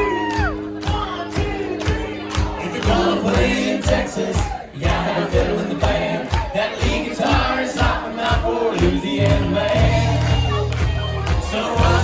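Live band music with a steady drum beat and bass, with a crowd of voices singing and shouting along.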